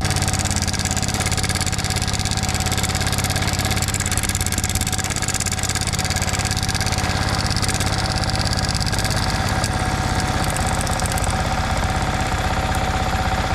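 Yamaha MT-15 single-cylinder engine running at a steady idle with a fast, even ticking clatter over the engine note. This is the bad engine noise of a slack timing chain left loose by a failed cam chain tensioner.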